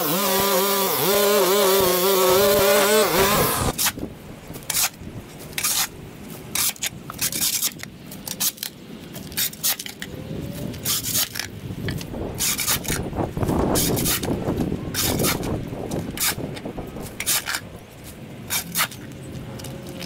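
A small engine running with a wavering pitch, which cuts off about three and a half seconds in. After that come irregular scraping, rubbing and clicking, like hand cleanup of yard debris.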